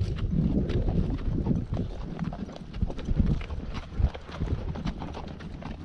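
Horse hooves clip-clopping on hard, dry dirt as horses are ridden at a steady pace, a quick irregular run of hoof strikes, the nearest from the ridden horse itself.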